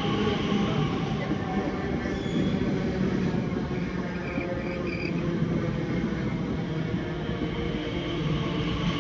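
Elizabeth line Class 345 electric multiple unit moving along the platform: a steady running rumble of wheels on rail with a faint electric motor whine over it.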